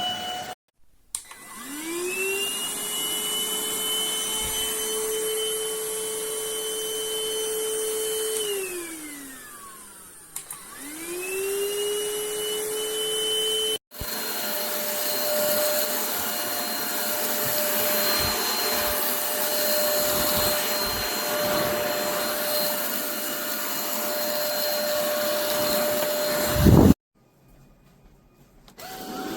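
Stanew 4-in-1 cordless stick vacuum cleaner running with a steady motor whine. It spins up about a second in, winds down around the eighth second and spins up again soon after. From about halfway it runs at a higher, steady pitch, then cuts off abruptly near the end and starts spinning up again at the very end.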